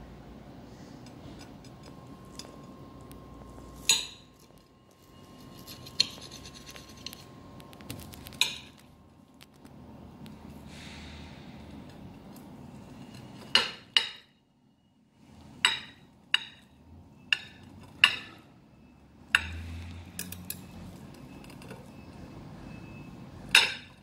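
Metal fork and knife clinking and scraping against a ceramic plate while cutting through a waffle: about a dozen sharp, separate clinks scattered through, over a low steady background hum.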